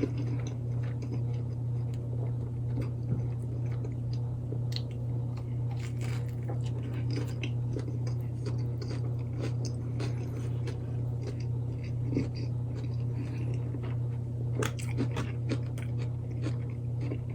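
A person chewing a mouthful of a chicken club sandwich with bacon and lettuce, with scattered small wet clicks and crunches, over a steady low hum.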